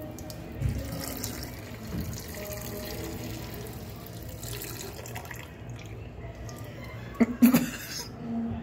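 A urine stream splashing into toilet water, with faint background music. About seven seconds in, a short loud burst of voice.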